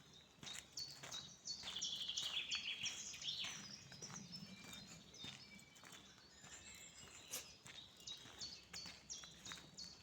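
Several songbirds singing, with many short high chirps and whistles overlapping and a fast trill about two seconds in.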